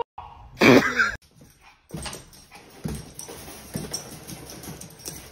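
Small dogs whimpering and yipping in short, repeated cries. A louder single call comes just before them, about half a second in.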